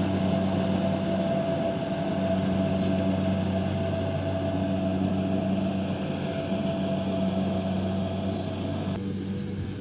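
Engine of a rice harvesting machine running steadily with an even hum. About nine seconds in the sound changes abruptly and the higher part drops away.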